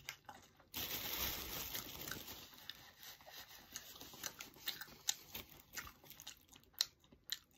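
Soft paper rustling and crinkling for a couple of seconds, starting about a second in, as a paper tissue is pulled out and handled. It is followed by scattered small clicks of a man chewing a toasted sandwich.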